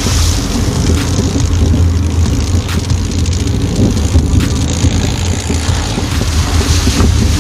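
Air-cooled Volkswagen flat-four engine of a Baja Bug running steadily while driving offroad, with a few sharp ticks over the drone.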